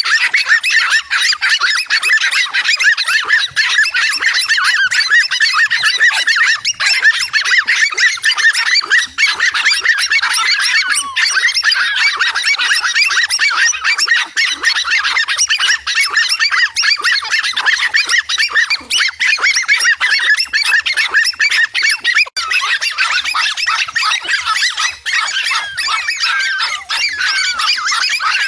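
A flock of birds calling, many high honking and chattering calls overlapping without a pause.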